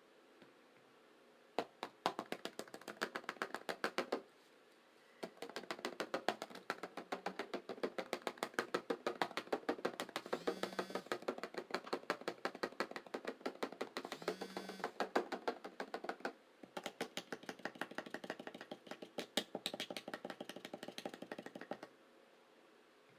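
Close-miked eating sounds: rapid runs of wet mouth clicks and smacks from chewing, in three stretches with short pauses between them. Two brief voiced sounds from the eater come midway.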